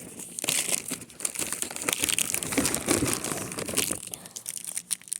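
Plastic candy wrappers crinkling as they are handled and rummaged through, a dense run of crackles that thins out near the end.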